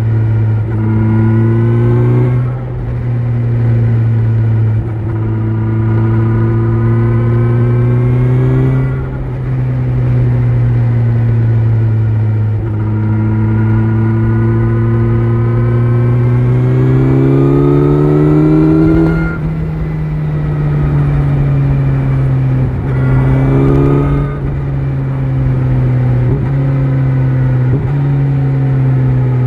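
Kawasaki Z900 inline-four with an Akrapovic exhaust under way, its revs climbing steadily and then dropping sharply about five times as it is shifted up through the gears, over a low wind rush.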